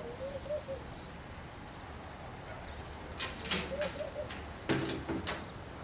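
Wooden-framed wire-mesh crate being handled and set down, giving several sharp knocks and rattles in the second half. A short warbling call sounds near the start and again in the middle.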